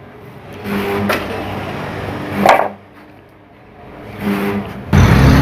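A washing machine's rotor set being handled and fitted onto the machine: plastic and metal parts scraping, with one sharp knock about halfway through. Near the end a sudden loud, steady noise starts.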